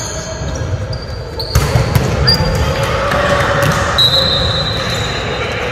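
Volleyballs being hit during play, with a few sharp hits about one and a half to two seconds in, echoing in a large gym hall under players' voices.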